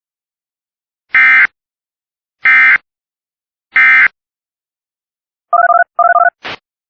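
Three short, loud bursts of Emergency Alert System SAME data tones, about a second and a quarter apart: the end-of-message code that closes an EAS activation. Near the end come two short warbling electronic beeps and a brief higher chirp.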